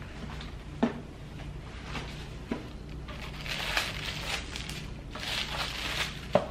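Paper rustling and crinkling as a rigid gift box is opened and tissue paper is lifted out of it, with a few light knocks of the box lid being handled: one about a second in, another at two and a half seconds and a sharper one near the end.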